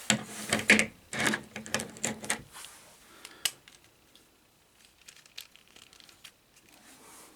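Plastic action figure being handled and its parts worked, giving a busy run of small clicks and rattles, then one sharper click about three and a half seconds in, then a few faint ticks.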